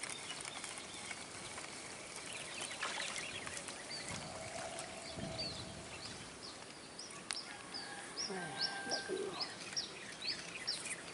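A small bird calling with a run of short, high chirps, about two a second, through the second half.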